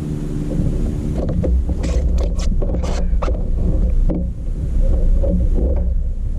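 Wind rumbling on the microphone and water against a kayak, with a handful of short sharp knocks about one to four seconds in.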